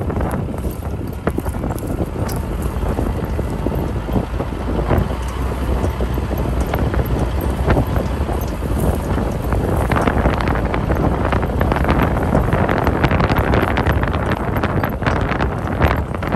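Wind buffeting the microphone, with scattered knocks and rattles from a vehicle bumping over rough pasture. The knocks grow busier and louder about two-thirds of the way through.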